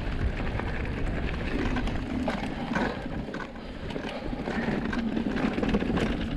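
Orbea Rise H15 electric mountain bike being ridden over a rough trail: a steady rush of tyre and trail noise with many small knocks and rattles from the bike.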